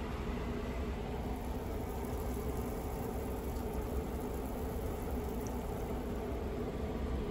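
Aquarium air stone bubbling steadily in a fish tank, with a low steady hum underneath.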